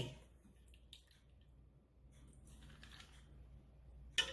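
Faint clicks and soft wet scooping sounds of a white ladle working through cooked pinto beans in a slow cooker's crock, with a sharper clink near the end.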